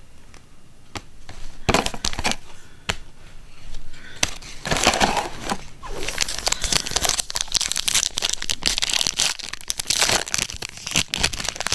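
Foil wrapper of a trading-card pack crinkling and tearing as it is ripped open. A few sharp crackles come first, then dense crinkling from about four seconds in.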